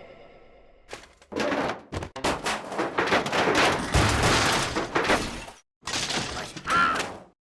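Cartoon slapstick sound effects: a rapid, dense clatter of crashes and thuds starting about a second in. It breaks off for a moment and resumes, with a short high squeak near the end.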